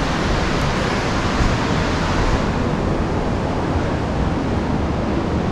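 Steady roar of rushing river water from the confluence of the Dhauli Ganga and Alaknanda, its hiss turning a little duller about halfway through.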